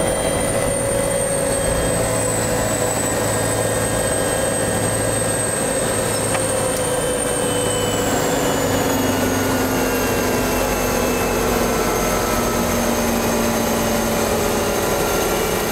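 Helicopter on the ground with its engine and rotor running. A steady mechanical noise is topped by a high whine that drops in pitch about halfway through.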